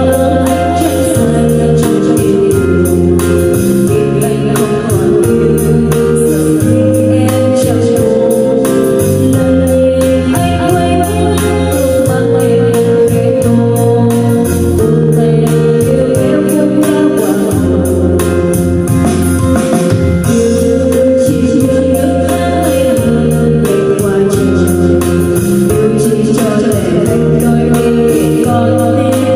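A woman sings karaoke into a handheld wireless microphone over a backing track with a steady bass line, played through the NT 2039 portable mini karaoke speaker.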